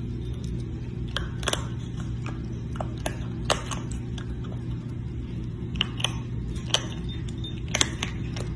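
Scattered sharp clicks and clinks, about eight in all, as a baby raccoon's paws and claws knock against a ceramic bowl while it eats, over a steady low hum.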